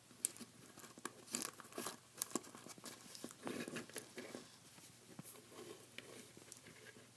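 Small plastic action figure being handled close to the microphone: a run of irregular light clicks and scratchy rubbing as its jointed limbs and armour pieces are moved.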